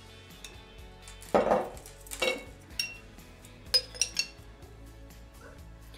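Metal spoon clinking and scraping against the inside of glass jars as yogurt is spread around their walls, with a heavier knock about a second and a half in and a quick run of glassy clinks around four seconds in.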